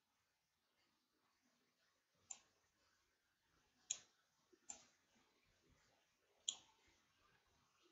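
Near silence with four faint, sharp clicks of a computer mouse, spaced one to two seconds apart.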